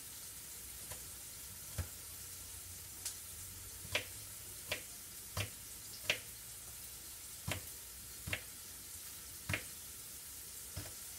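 Kitchen knife chopping asparagus on a plastic cutting board: about eleven sharp, unevenly spaced knocks, roughly one a second. Underneath, the steady sizzle of butter, mushrooms, bell pepper and onion frying in a skillet.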